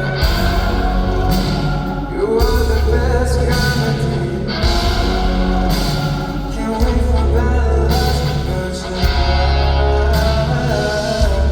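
A man singing live with band accompaniment over a heavy, sustained bass, played loud through a concert sound system.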